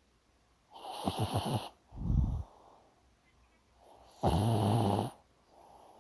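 Dog snoring in its sleep: two loud snores of about a second each, the first a fluttering rattle about a second in and the second louder and more pitched a little past four seconds, with a short low puff just after the first and soft breaths between.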